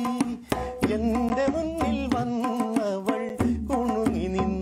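Tabla played with both hands, a steady run of strokes on the pair of drums, with a singing voice over it.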